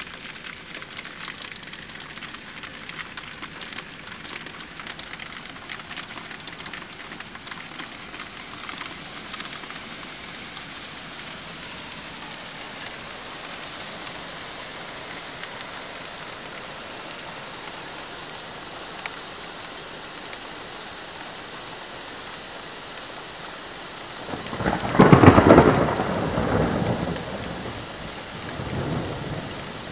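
Heavy rain and hail pelting a windowsill and window glass: a steady hiss with many sharp ticks of hitting stones, densest in the first half. A loud peal of thunder breaks about 24 seconds in and rumbles on for a few seconds, with a weaker rumble near the end.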